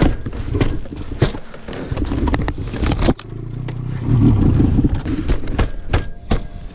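Snowmobile engine running under helmet-camera noise, broken by sharp knocks and scraping of snow and hard plastic. A cut about three seconds in brings a steady low engine hum that swells about a second later.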